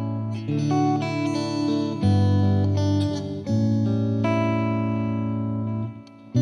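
Background instrumental music with plucked guitar playing sustained notes, briefly dropping away just before the end.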